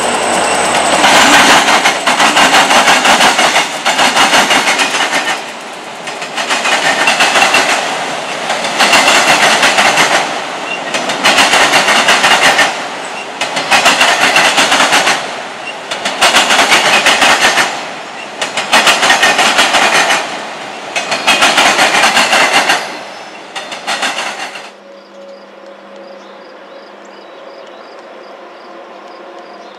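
Freight car wheels hammering over a railroad diamond crossing. A loud burst of clatter comes about every two and a half seconds as the trucks of each pair of coupled cars cross the frogs. About 25 seconds in it cuts to a much quieter steady background of insects chirring.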